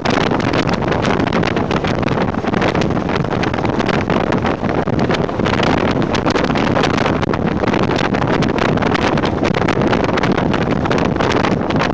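Jeep CJ7 driving along a sandy dirt road at speed: a steady rush of wind buffeting a microphone held outside the vehicle, over the noise of the tyres and engine.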